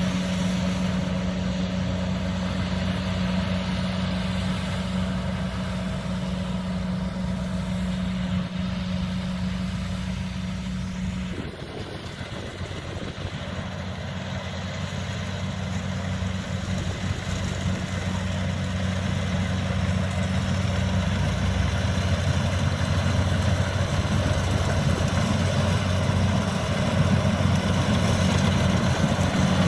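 Kubota DC-70 combine harvester's diesel engine running steadily with a constant hum. About 11 seconds in the pitch drops suddenly, and the sound then slowly grows louder.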